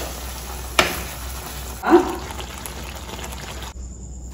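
Thick coconut and cashew chicken gravy bubbling in a pan as a spoon stirs it, with a sharp click about a second in and a short louder scrape near two seconds. The bubbling cuts off abruptly shortly before the end.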